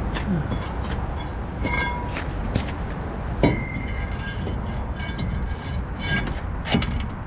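Cast-iron brake rotor being handled and slid over the wheel studs onto the front hub of a Ford F-350: repeated metallic clanks and scrapes, some with a short ringing tone, the loudest about three and a half seconds in. A steady low rumble runs underneath.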